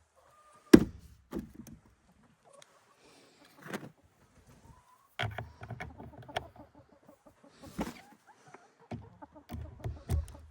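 Chickens clucking quietly, with a few sharp knocks and clicks of handling and fitting work mixed in; the loudest knock comes about a second in.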